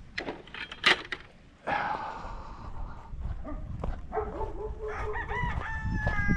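A rooster crowing in the second half, a drawn-out crow of several held pitched notes ending on a long, slightly falling note. A sharp knock sounds about a second in.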